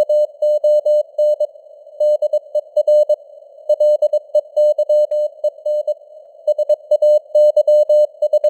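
Morse code (CW) sent at 22 words per minute: a single steady beeping tone keyed on and off in dots and dashes, over a narrow band of simulated radio hiss.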